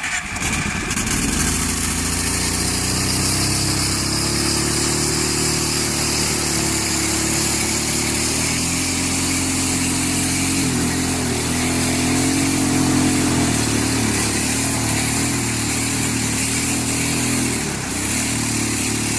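Arctic Cat 650 engine running steadily at idle right after starting, its note wavering slightly, with a brief dip near the end.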